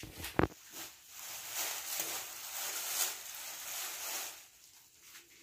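Clear plastic sleeves on artificial Christmas tree branches rustling and crinkling as the branches are handled and spread out, with a sharp knock about half a second in.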